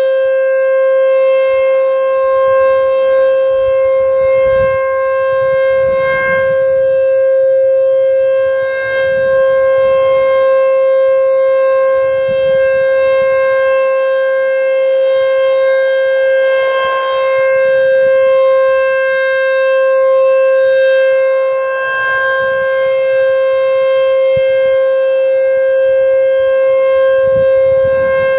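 American Signal T-128 rotating warning siren sounding its steady alert signal: one unwavering tone with strong overtones, swelling and fading gently as the horn turns.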